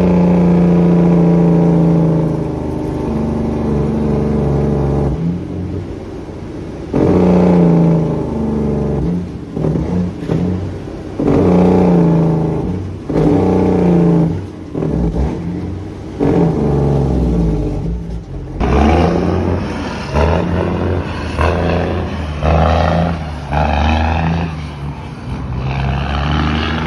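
Heavy diesel semi-truck engine heard from inside the cab, pulling hard and dropping back in pitch again and again as the driver shifts the manual transmission up through the gears. About two-thirds in the sound changes to a truck heard from the roadside, accelerating away through its gears.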